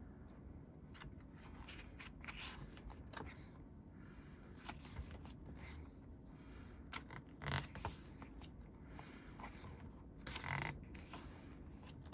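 Pages of a thick, tightly bound photobook being turned by hand, paper rustling and flipping one page after another, with two louder page flips about halfway through and near the end. A low steady buzz from a window air conditioner runs underneath.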